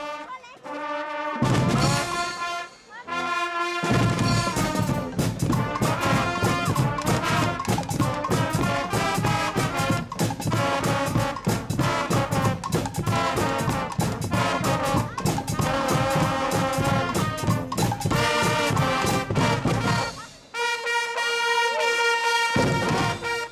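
Guggenmusik brass band playing: trumpets, trombones and sousaphone blaring together, with a few short held chords before a drum kit comes in about four seconds in. Near the end the drums stop and the brass holds one long chord.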